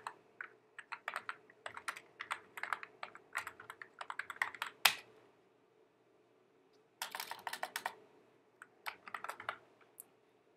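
Computer keyboard typing: quick runs of keystrokes for about five seconds, a pause of about two seconds, then two more short runs of keys near the end.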